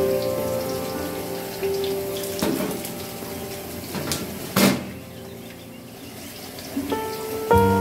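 Food sizzling as it fries in oil in a wok, with a slotted spatula knocking and scraping against the pan a few times, the loudest knock a little past halfway. Soft background music plays at first, fades out in the middle and comes back near the end.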